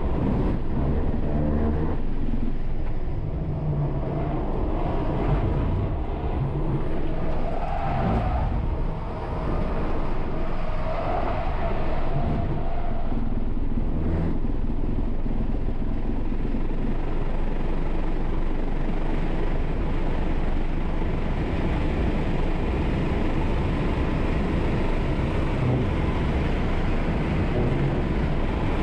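Cabin noise of a Tesla Model 3 Performance driven hard on track: steady tyre, road and wind noise with no engine sound, with short tyre squeals in the hard corners near the start and around the middle. The wind hiss grows as the car accelerates past 120 mph near the end.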